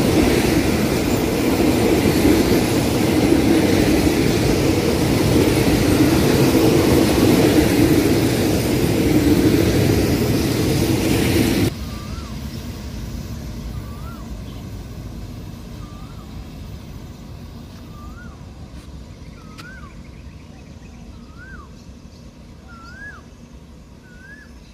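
Passenger coaches of a train rolling past close by: a loud, steady rumble of wheels on rail that cuts off suddenly about 12 seconds in. After that it is much quieter, and a bird calls over and over, a short rising note about every second and a half, the notes growing louder and slightly higher.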